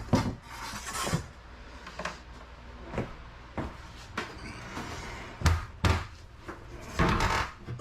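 Irregular knocks, clicks and clatter of hand work in the confined interior of a bus under conversion, with a louder run of knocks near the end.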